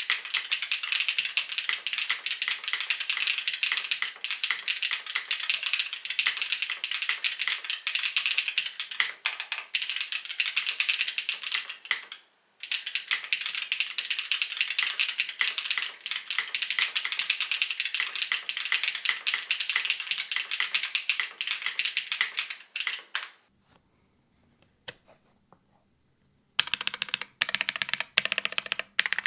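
Fast continuous typing on a custom tenkeyless mechanical keyboard with dry (unlubricated) 55 g linear WINGTREE Nezuko switches, GMK keycaps and a foamless top-mounted aluminium plate, giving a quick, dense run of keystroke clacks. The typing breaks off briefly about 12 seconds in, then stops for about three seconds near the end with only a few single key presses before it resumes.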